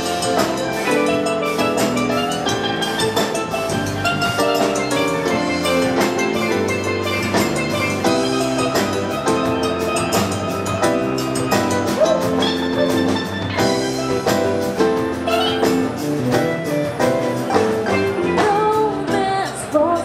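Live band playing an upbeat tune, with a steel pan carrying the melody in quick struck notes over a drum kit and electric guitars.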